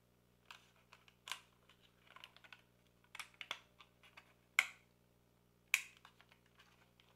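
Plastic propeller guard of a DJI Neo drone being fitted, its latches clicking into their holes: a string of small sharp clicks and taps, the loudest two about four and a half and nearly six seconds in.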